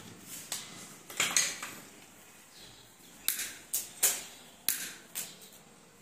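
Hands handling electrical wires and a plastic wall switch socket: a string of short clicks and rustles, about eight or nine, the sharpest ones in the second half.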